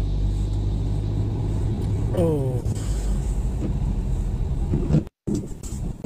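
Steady low drone of car engine and tyre noise heard inside the cabin while driving, with a short voice sound about two seconds in. The sound cuts out suddenly for a moment just after five seconds.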